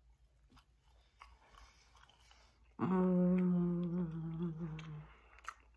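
A woman chewing a bite of food with faint wet mouth clicks, then, about three seconds in, one long steady closed-mouth "mmm" hum lasting about two seconds.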